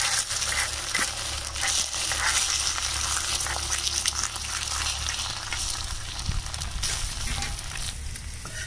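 Eggs sizzling in hot oil on a cast-iron griddle over a wood fire, a steady frying hiss that swells as a raw egg is cracked onto it, with a few small ticks and spits.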